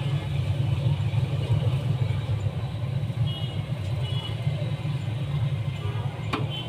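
Steady low mechanical rumble, like an engine or motor running, with a single sharp click near the end.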